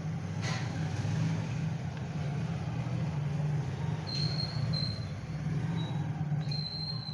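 A steady low hum throughout, with a single sharp click about half a second in and short high-pitched whistling tones about four seconds in and again near the end.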